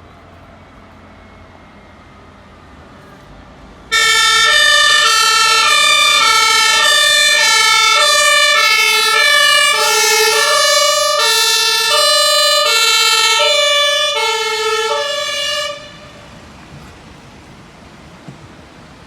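German emergency vehicle's two-tone siren (Martinshorn), switching back and forth between a low and a high note, each held for under a second. It starts suddenly about four seconds in, is loud for about twelve seconds, then cuts off, leaving a faint traffic rumble.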